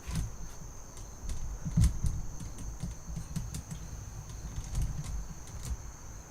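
Scattered clicks and light knocks of objects being handled, with a heavier low thud a little under two seconds in, over a faint steady high-pitched tone.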